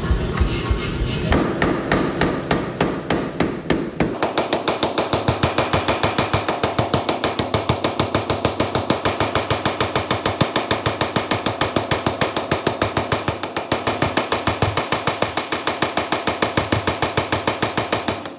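An Anyang self-contained air power hammer with flat dies pounds a red-hot stainless-clad San Mai billet in a rapid, steady run of blows. This is the forge weld being set at welding heat. The blows stop just before the end.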